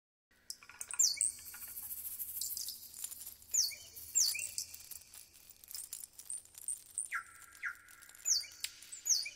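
Birds calling: short, high whistled notes that slide downward, mostly in pairs, with a lower pair of falling notes about seven seconds in, over faint background noise.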